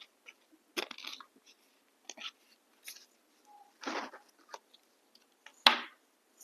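Someone biting into and chewing a crunchy biscuit snack: a series of short, sharp crunches about a second apart, the loudest near the end.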